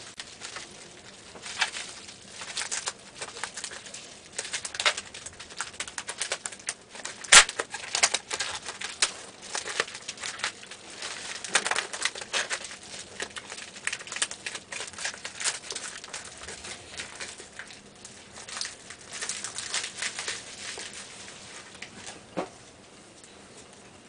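A paper mailing envelope being torn open and its packaging handled: irregular rustling and crinkling, with one sharp snap about seven seconds in.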